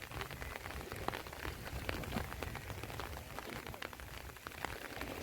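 Faint, irregular pattering of small water drops, with scattered light ticks over a low rumble.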